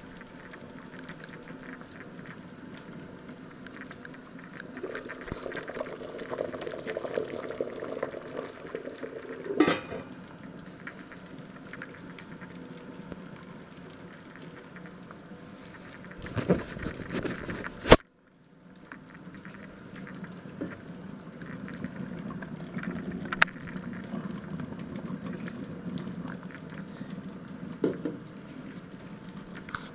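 A large lidded stockpot boiling on an electric hob, a steady bubbling that swells and fades. A sharp knock about a third of the way in, and a short clatter about halfway through that cuts off abruptly.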